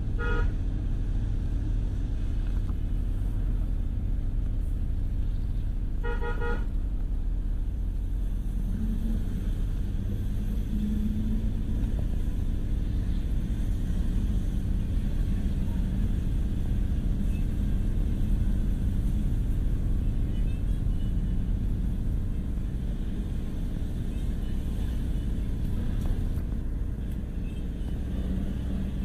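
Steady low rumble of a car on the road, with two short vehicle horn toots: a brief one at the very start and a louder one about six seconds in.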